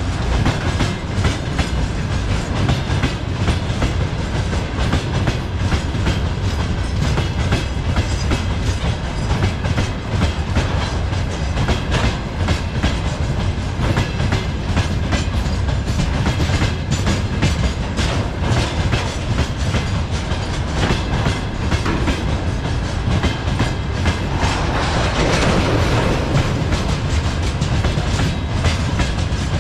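Freight train wagons rolling past on the main track: a steady low rumble with rapid clickety-clack of wheels over rail joints. A louder stretch of hiss swells briefly about three-quarters of the way through.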